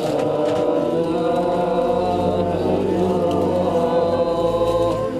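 Chanting voices holding long, slightly wavering notes over a steady musical drone.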